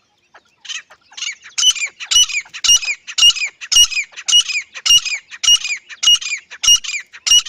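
Grey francolin calling: a loud, rhythmic series of about a dozen repeated notes, close to two a second, beginning about a second in.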